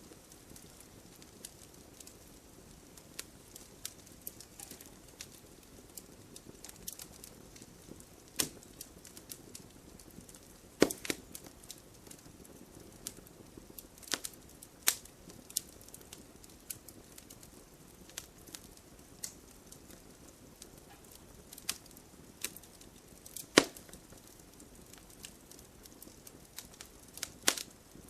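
Firewood burning in a fireplace, crackling with irregular sharp pops over a soft low hiss of flames. Two pops, about 11 and 24 seconds in, stand out as the loudest.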